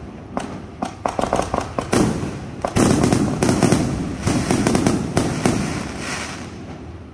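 Fireworks going off: a rapid, uneven series of sharp bangs and crackles with a rumbling echo, thinning and fading away near the end.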